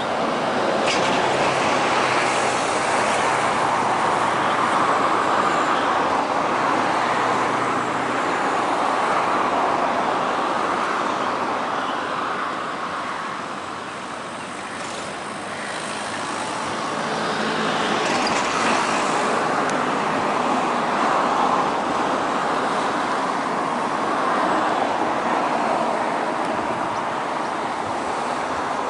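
Single-engine high-wing light aircraft's propeller engine running at full power on its takeoff roll and climb-out, a steady loud drone that dips briefly about halfway through, then swells again.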